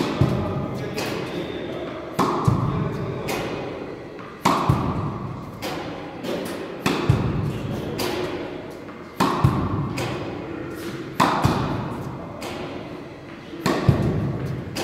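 Tennis racket striking balls on forehand groundstrokes, seven sharp pops about every two and a half seconds, each ringing out in a large indoor court hall.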